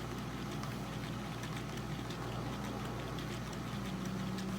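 Mini beauty blender washing machine running steadily, its small motor spinning a soaked makeup sponge in water, a low even hum.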